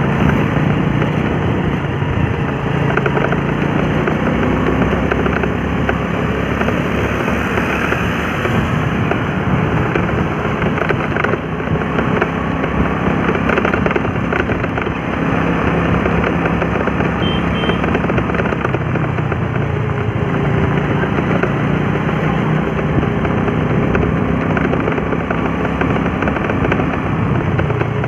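Motorbike engine running steadily at cruising speed, with a constant low hum under road and wind noise from riding.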